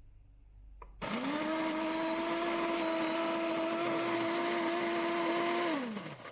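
Electric flat burr coffee grinder switched on with a click, its motor spinning up about a second in to a loud, steady whine with the gritty noise of beans being ground, then winding down near the end as the 2-cup grind finishes.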